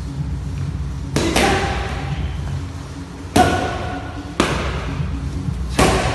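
Gloved strikes smacking into a trainer's focus mitts during Muay Thai pad work: five sharp slaps, a quick pair about a second in, then three single hits spaced a second or more apart.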